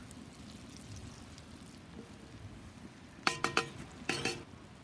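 Butter sizzling faintly as it melts in a cast iron Dutch oven over a fire. A few sharp knocks with a short metallic ring come about three seconds in and again about a second later, as the spoon strikes the pot.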